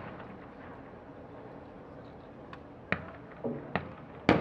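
12-gauge shotgun shots on a skeet range: three sharp reports spaced under a second apart in the second half, the last and loudest near the end.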